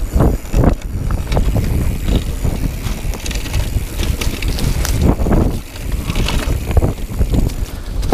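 Mountain bike riding fast over a rough dirt singletrack: heavy wind rumble on the camera's microphone, with irregular rattling and clattering from the bike over the bumpy ground.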